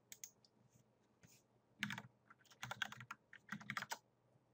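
Faint typing on a computer keyboard: a few keystrokes at the start, then quick runs of keystrokes about two seconds in and again near the end.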